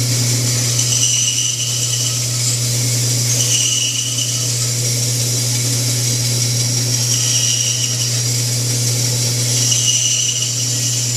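Woodworking band saw running steadily with a low motor hum, its blade cutting briefly into a wooden block four times for short relief cuts, each cut heard as a short higher whine over the hum.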